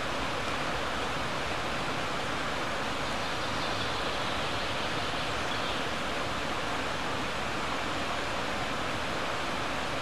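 Steady rushing of the River Llugwy's flowing water, an even hiss that stays level throughout.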